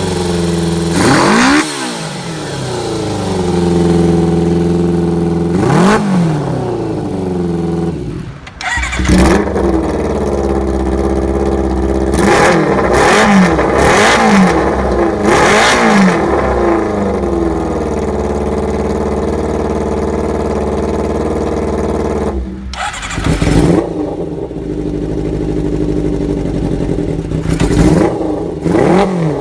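Kawasaki Zephyr 400's air-cooled inline-four engine, on power filters and an aftermarket exhaust, idling and being revved in short throttle blips. The pitch rises and falls back to a steady idle each time, with a quick run of several blips about halfway through.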